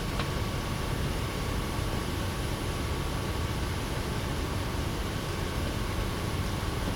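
Steady background noise with a faint steady high tone and a single click just after the start.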